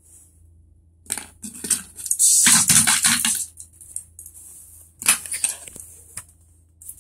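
Crinkly rustling and scraping close to the microphone in bursts: a short one about a second in, a longer, louder one from about two to three and a half seconds, and another about five seconds in.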